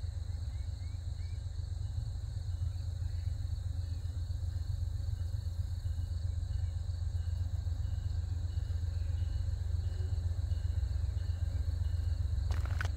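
A steady low rumble that slowly grows louder, under a constant high chirring of crickets. A few brief clicks come near the end.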